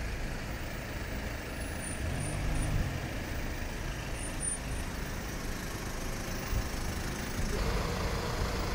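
Motor vehicle engine and road noise: a steady low rumble, with an engine hum swelling about two seconds in and the sound growing brighter near the end.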